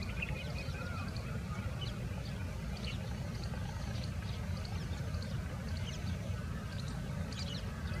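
Many birds at a nesting colony chirping and calling, short high notes coming several times a second, over a steady low rumble that is the loudest sound.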